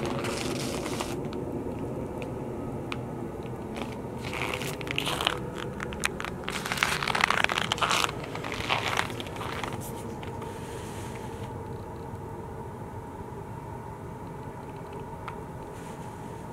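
Footsteps crunching in snow at about −19 °F, in a burst of irregular crunches from about four to nine seconds in, over a steady low hum.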